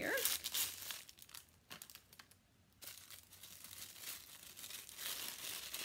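Crinkling and rustling of a small wrapped jewelry package being handled and worked open, with a short lull about two seconds in.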